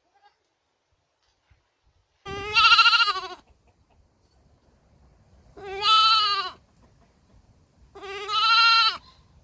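Baby goat bleating three times, each call about a second long with a wavering pitch, a couple of seconds apart.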